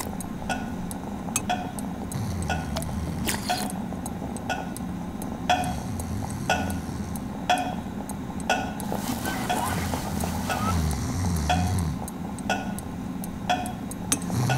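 A clock ticking steadily, about once a second, over a low steady hum. From about nine to twelve seconds in, a soft hiss and a wavering low buzz join in.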